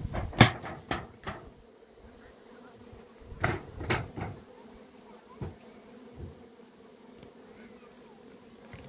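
Honeybees buzzing in a steady hum around wooden hives. Sharp wooden knocks come in a quick cluster during the first second or so as the hive lid is settled, and two more knocks follow about three and a half seconds in as a stone is set down on the lid.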